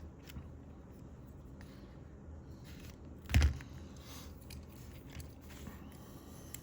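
Faint crackly scraping of solder wick rubbed under a hot soldering iron over a rotary switch contact, the wick soaking up the solder. A single loud thump about three and a half seconds in.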